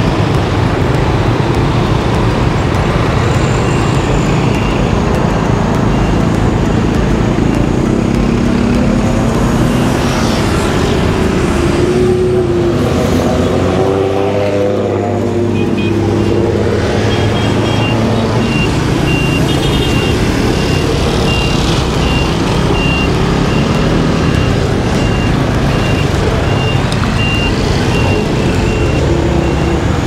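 Motor scooter riding in dense street traffic: a steady rumble of engines and road noise, with the engine pitch sliding up and down around halfway through. A faint, evenly repeating high beep sounds through the second half.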